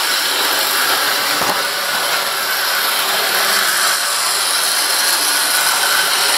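00 gauge model train running round the layout: a steady whirring hiss of the locomotive's motor and wheels on the track, with a light knock about a second and a half in.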